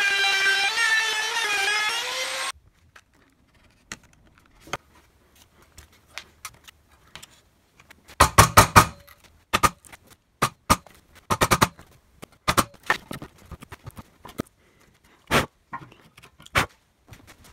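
A handheld router's motor whines at high speed, its pitch dipping as it cuts along the wooden frame, and cuts off sharply about two and a half seconds in. After a pause, a hand chisel pares wood out of the router-cut rabbet's rounded corners to square them, in a series of sharp clicks and crunches. The densest cluster comes about eight seconds in.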